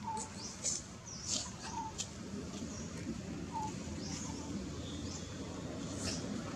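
Faint, scattered short high bird chirps, one every second or so, over a steady low background noise.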